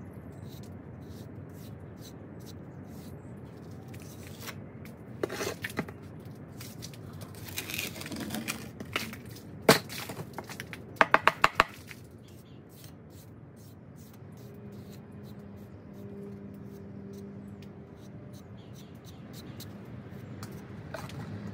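Steady background noise with scattered knocks and clicks: one sharp, loud click about ten seconds in, followed by a quick run of about five clicks. A faint low hum comes in about two-thirds of the way through.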